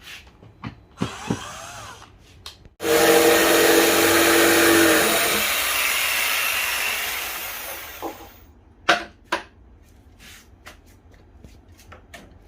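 A power tool starts suddenly about three seconds in with a loud whirring run, then dies away over several seconds. Scattered clicks and knocks of tools being handled come before and after it.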